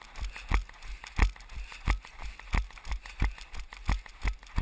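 A runner's footfalls on a tarmac road, heard as steady thumps about three times a second, alternating stronger and weaker with each stride, jolting a body-worn camera.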